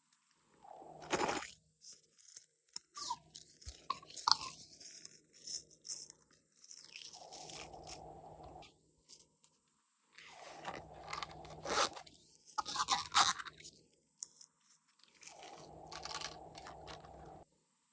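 Glossy slime being worked by hand, with irregular crunching and clicking as it is pressed and squeezed.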